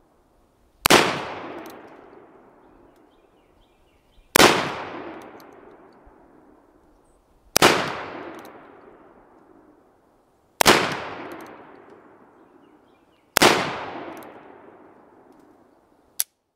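Five shots from an 1858 Remington .44 cap-and-ball revolver firing paper cartridges, about three seconds apart, each report dying away over a couple of seconds. A short click near the end.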